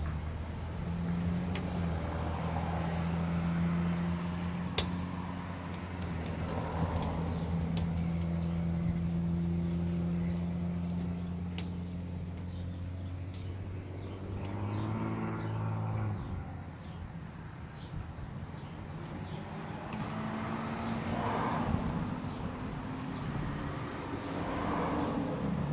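Motor vehicle engine running steadily with a low hum that stops about sixteen seconds in, as a vehicle passes with a falling pitch. Lighter traffic follows, with a few single sharp taps scattered through.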